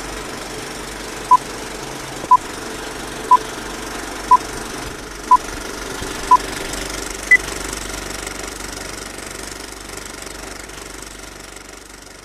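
Film-countdown leader sound effect: a film projector runs with a steady clatter while a short beep sounds once a second, six times, then once more at a higher pitch. The projector noise fades out near the end.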